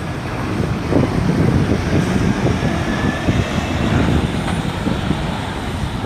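Steady London street traffic, with wind buffeting the phone's microphone in an uneven low rumble.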